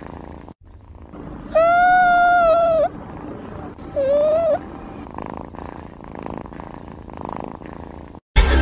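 A cat purring steadily, with two high, drawn-out squeaky mews: a long one about one and a half seconds in and a short one about four seconds in.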